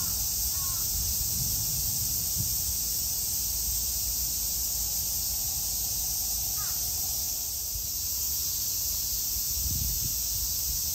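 Crow cawing: the last two caws of a quick run about half a second apart at the start, and one more single caw about two-thirds of the way through. A steady high hiss runs underneath.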